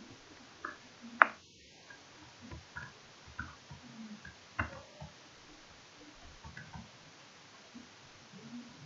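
Steady hiss of room tone with a few scattered small clicks and soft knocks. The sharpest click comes about a second in and another a little after four seconds.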